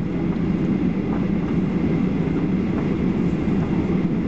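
Steady low cabin rumble of a Boeing 737-800 taxiing after landing, heard from inside the cabin: its CFM56-7B engines at low taxi thrust and the wheels rolling on the taxiway.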